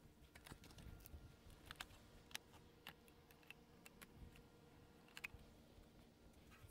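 Near silence with a few faint, irregular clicks and light knocks from a person walking about and handling composite garden-bed boards.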